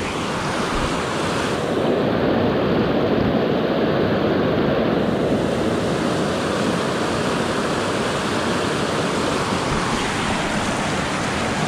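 Mountain creek rushing over boulders in whitewater riffles and small cascades: a steady, even hiss of water.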